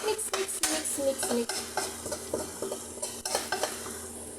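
Spatula stirring and scraping in a frying pan, with irregular clicks against the pan, as egg and vegetables sizzle in hot oil.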